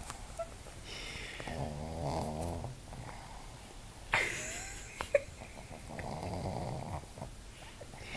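A sleeping pug snoring, two long rattling snores about four seconds apart. Between them comes a short, sharp noise.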